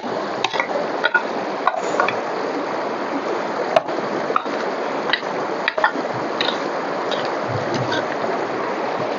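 Steady rush of river water, with irregular clicks, knocks and scrapes of a small hand digging tool working into stony, gravelly ground.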